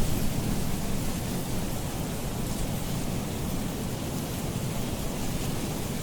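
Strong wind blowing across the frozen reservoir: a steady rushing noise with a heavy low rumble.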